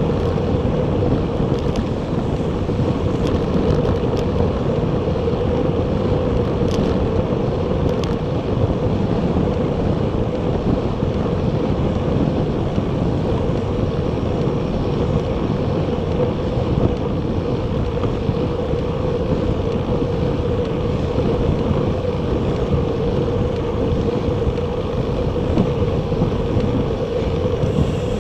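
Steady wind rush on an action camera's microphone while riding a Bacchetta Corsa recumbent bicycle, mixed with tyre and road noise and a steady hum underneath.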